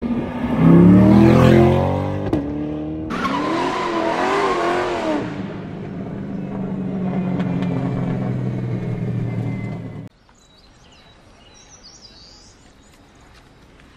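A Chevrolet C8 Corvette's V8 accelerating, its exhaust note rising in pitch. About three seconds in, tyres squeal over a steady low engine drone. The drone cuts off suddenly about ten seconds in, leaving a faint background with a few high chirps.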